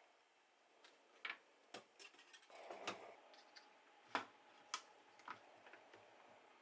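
Faint, scattered light clicks and knocks, about eight at uneven intervals, with a brief rustle near the middle.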